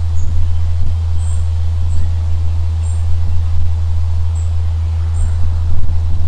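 Outdoor field ambience: a steady low rumble, with short high-pitched bird chirps every second or so.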